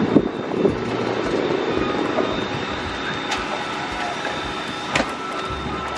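Steady whine and rush of jet aircraft on an airport apron, with two sharp clanks about three and five seconds in from footsteps on metal boarding stairs.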